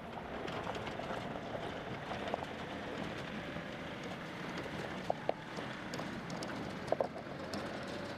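John Deere 2038R compact tractor running the PTO-driven IH 440 square baler: a steady mechanical noise with a few sharp clicks, in two close pairs in the second half.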